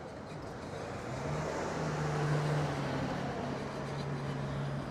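A motor vehicle driving past: a low engine hum and tyre noise that swell to a peak about two seconds in, then slowly fade.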